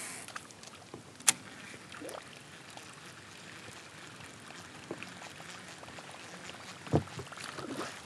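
Faint steady water gurgling of a Whopper Plopper topwater lure being reeled in across calm water from a kayak, with a sharp click a little over a second in. About seven seconds in comes a sudden heavy splash: a big smallmouth bass striking the lure.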